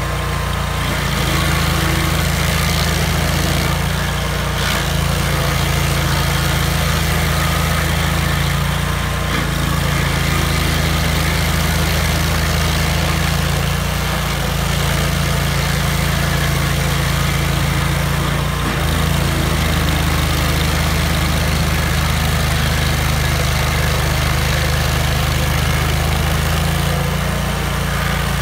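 Vermeer stump grinder's engine running steadily under load while its cutter wheel grinds into a stump, throwing chips, with the engine note shifting briefly a few times as the wheel bites.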